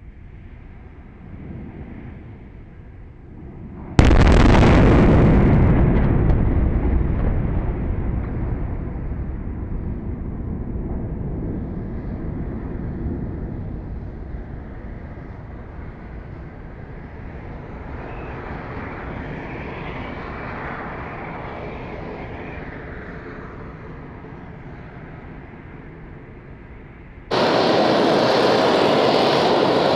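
Super Heavy Booster 7 exploding at its base after an unexpected ignition during Raptor engine testing: faint venting noise, then a sudden loud blast about four seconds in and a long rumble that slowly fades. Near the end the sound switches abruptly to the steady loud hiss of the booster venting its tanks to depressurise.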